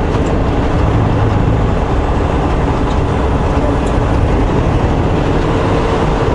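Semi truck driving on the highway, heard from inside the cab: a steady engine drone under road and tyre noise.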